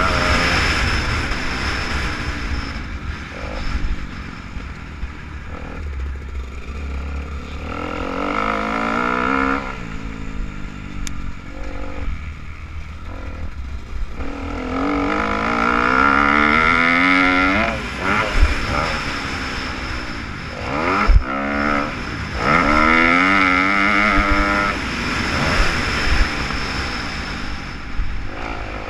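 Motocross bike's single-cylinder engine revving up and falling back again and again through gear changes as it is ridden around a dirt track, heard from a helmet-mounted camera with low wind rumble. One sharp knock about two-thirds of the way through.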